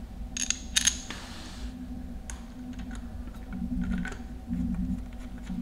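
Small metal clicks and taps as a finned aluminium tappet cover and its bolts are handled and fitted to a motorcycle engine by hand: a few sharp clicks in the first second, then scattered light ticks over a faint low hum.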